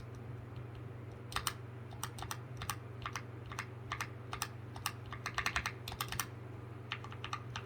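Typing on a Drop CTRL mechanical keyboard fitted with Akko CS Lavender Purple tactile switches and a foam insert: quick, irregular runs of keystrokes starting about a second and a half in, with a steady low hum underneath.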